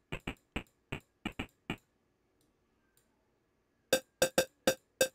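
Synthesized closed-hi-hat-style percussion from a software modular synth: short noise hits shaped by a percussive envelope, fired in an uneven rhythm. About seven short, duller hits come first, then a pause, then from about four seconds in a louder, brighter run of hits with a faint pitched ring in them.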